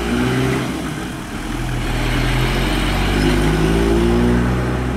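Bus diesel engine accelerating away, its note climbing, easing briefly about a second in, then climbing again.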